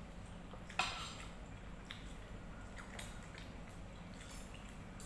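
Forks clinking and scraping against a plate and a glass bowl while eating, with one sharp clink about a second in and a few fainter ones after.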